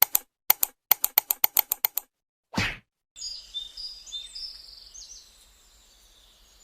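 A quick run of sharp clicks that come faster and faster, then a short swish, then high bird chirps that fade away.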